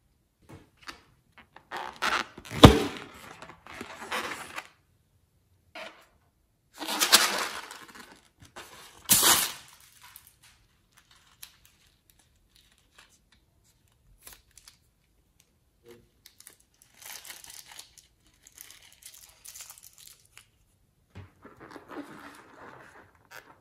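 Hands handling slime-filled latex balloons over a glass bowl: rubber rustling and slime being squeezed out, in a few loud noisy bursts in the first ten seconds, then quieter handling of the balloons.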